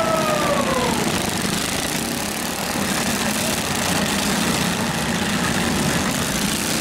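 Several garden tractors' small engines running together as the tractors push and ram in a pack, with a falling whine in the first second.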